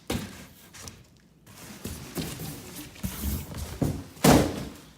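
Packaging and parts being handled: irregular rustling and knocks, with a loud thump about four seconds in.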